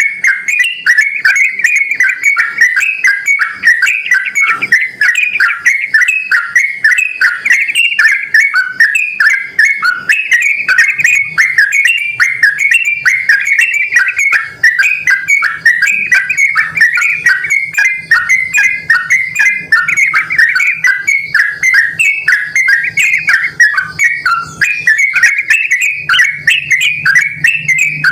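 Yellow-vented bulbul (trucukan) singing without a break: a fast, continuous run of short bubbly chirping notes.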